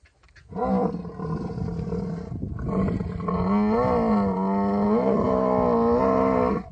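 Camel calling in the mating season: two long, pitched calls with a short break about two seconds in, the second longer and wavering up and down in pitch.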